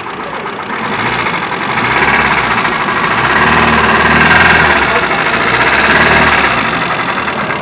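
Hyundai i10 1.1-litre petrol engine running with an abnormal valvetrain noise and vibration, getting louder from about a second in and easing a little near the end. The mechanic puts the noise down to a worn camshaft and a bad rocker arm upsetting the valve operation, after a tappet adjustment failed to cure it.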